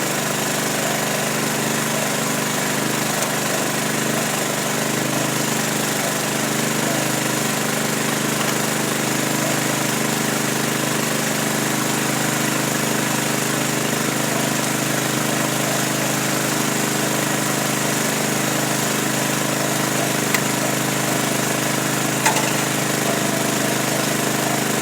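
A motor running steadily, a constant hum with a hiss over it, with a couple of faint clicks near the end.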